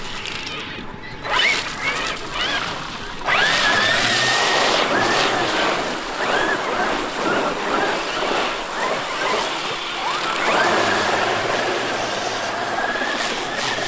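Traxxas X-Maxx 8S brushless electric monster truck driving hard through a muddy puddle, its tyres throwing up splashing, spraying water. Over the splashing the 1200XL brushless motor whines, rising quickly in pitch as the throttle opens about three seconds in and again near ten seconds, then holding steady.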